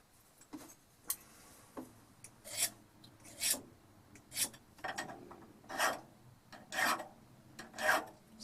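Hand-sharpening a steel auger bit's cutting edge: a series of rasping strokes of a small abrasive rod across the steel, about one a second and growing more distinct after the first couple of seconds. The bit is a different type of steel, and it sounds very different.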